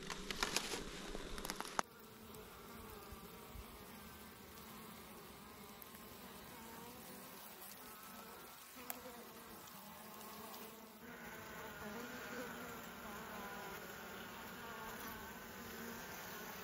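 Many honeybees buzzing over an opened hive full of comb, a faint, steady drone that wavers slightly in pitch. A few light knocks of handling come in the first two seconds.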